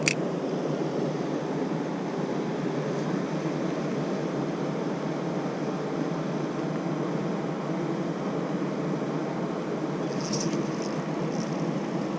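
Mountain stream rushing steadily, a constant water noise, with a sharp click at the very start and a few light ticks about ten seconds in.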